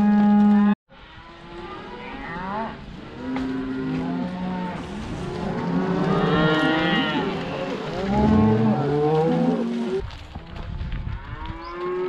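A herd of cattle being driven, many cows mooing and bawling over one another at different pitches, thickest in the middle of the stretch. It opens with a loud electronic tone that cuts off abruptly less than a second in.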